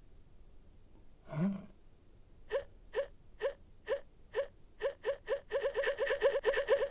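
A man hiccups once, a short sudden catch of the breath. Then a run of short, rising squeaks begins, spaced at first and speeding up to a rapid chatter.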